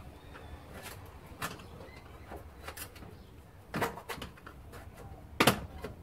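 Metal seat and seat-belt fittings being worked by hand: scattered clicks and knocks, a louder one about four seconds in and the loudest, sharp knock about five and a half seconds in.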